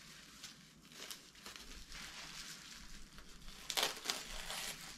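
Plastic packing wrap rustling and crinkling as a small wrapped item is unwrapped by hand, with a louder crinkle about four seconds in.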